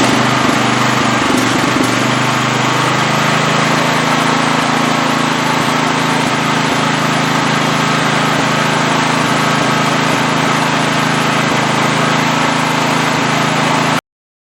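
Small portable generator's engine running steadily after a no-compression repair (stuck valve freed, spark plug hole rethreaded). Its pitch shifts and settles about two seconds in, then holds steady until the sound cuts off abruptly near the end.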